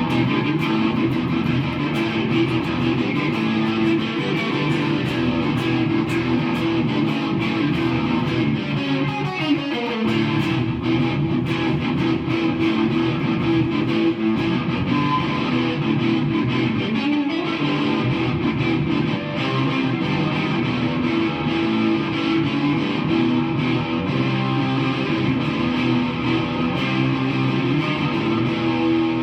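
Electric guitar played continuously through an amp, its signal sent wirelessly by an AKG WMS 40 Mini instrument transmitter and receiver, with a downward pitch slide about ten seconds in.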